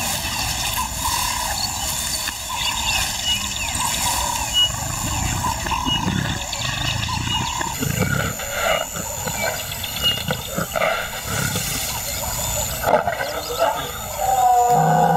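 Lioness scraping dry grass and earth with her forepaws to bury the stomach of her kill. Near the end she starts calling, a deep pitched call that gets louder.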